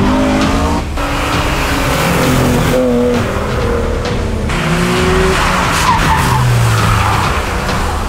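Race cars cornering hard on a track: engines revving with pitch rising and falling, and tyres squealing as they slide through the bends. The sound changes abruptly several times as different cars take over.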